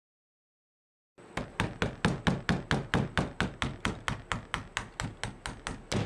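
Rapid hammer blows on a VW Beetle pedal assembly, about six sharp metallic strikes a second, starting about a second in after dead silence. They are driving out a seized roll pin that has been heated with a torch to free it.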